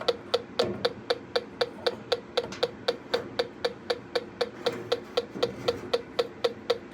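Electronic combustible gas leak detector ticking at a steady, even rate of about four to five ticks a second. The unchanged rate shows that it finds no gas at the joints being checked.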